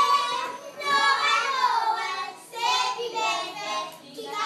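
A group of children singing a song together in high voices, in phrases with a short break partway through.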